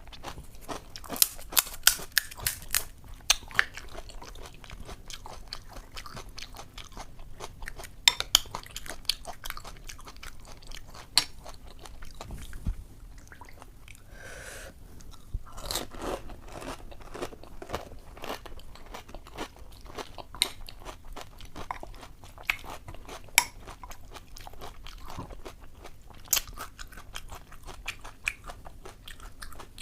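Close-miked crunching and chewing of puchka (pani puri): crisp fried shells cracking as they are bitten, in sharp clusters near the start and about eight seconds in, with softer wet chewing between.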